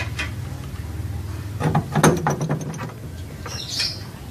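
Hand tools clinking and knocking against metal, with a cluster of sharp clicks about two seconds in and a short hiss near the end.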